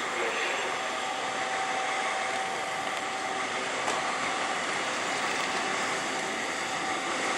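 Steady rushing noise of a train in motion, with a faint steady hum.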